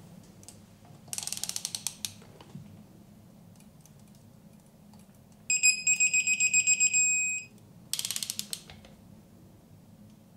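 Torque wrench ratcheting on an ARP head-stud nut of a 4B11T cylinder head, a quick run of clicks about a second in. Then a rapid high beeping for about two seconds, the electronic torque wrench signalling that the set torque is reached. Then another short run of ratchet clicks.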